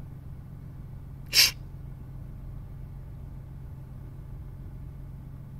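A single short, sharp sneeze about a second and a half in, over a steady low hum.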